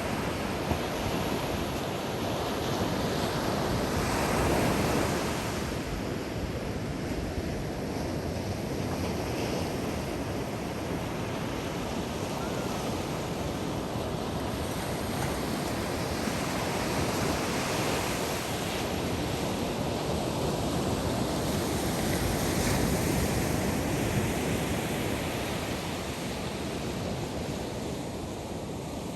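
Ocean surf breaking and washing up on a sandy beach: a continuous rushing wash that swells louder as waves break, notably about four seconds in and again near three-quarters of the way through.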